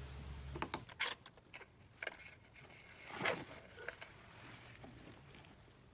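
Ignition coil and a spark plug socket on an extension being handled in gloved hands: scattered light clicks, rattles and rustles of plastic and metal as the coil is pulled and the socket goes into the spark plug tube, the loudest about three seconds in.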